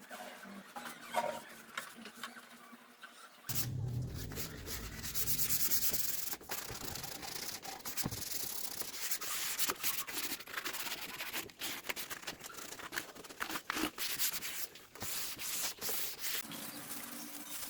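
Wood being sanded: a steady rubbing, scratchy noise that starts about three and a half seconds in and carries on.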